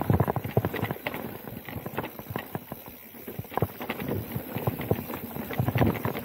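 Specialized Turbo Levo Gen 3 electric mountain bike rattling over a dirt trail: an irregular run of clicks and knocks from the bike as it goes over bumps, louder at the start and again near the end.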